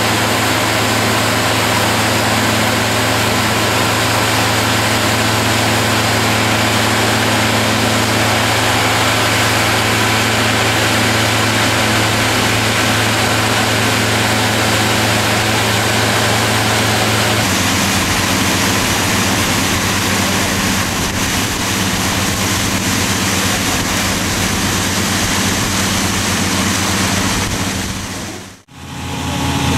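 Pump engine running steadily, with water gushing out of the discharge hose. A little past halfway the engine note changes abruptly, and near the end the sound drops away for a moment.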